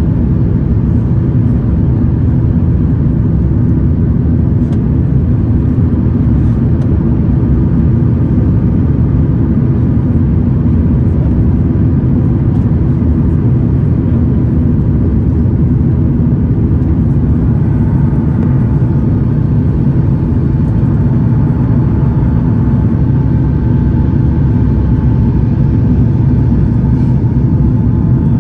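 Steady cabin rumble of an Airbus A330-900neo climbing after takeoff: Rolls-Royce Trent 7000 engine noise and airflow, heard from a seat over the wing. A faint steady whine comes in about two thirds of the way through.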